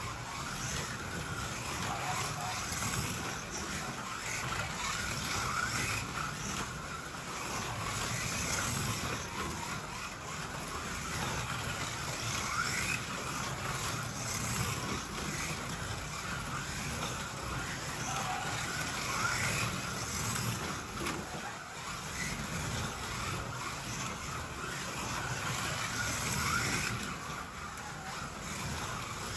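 Two 1/32-scale RevoSlot slot cars running laps on a Ninco plastic track: their small electric motors whine continuously, rising and falling in pitch as the cars speed up and brake.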